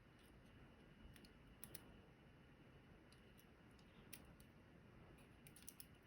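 Faint, scattered small metallic clicks from handling the tiny pins of a disassembled Medeco Original lock cylinder as the driver pins are taken out one at a time.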